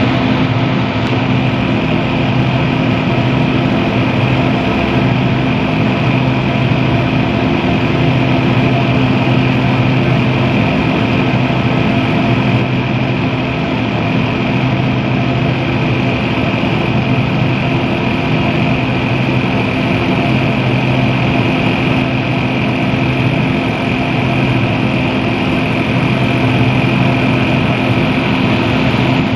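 Exhaust fan running steadily: a constant motor hum with an even whoosh of moving air and a faint high whine.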